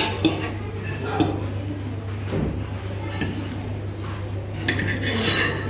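Metal fork and spoon clinking and scraping against a ceramic plate, in several separate sharp clinks, over a steady low hum.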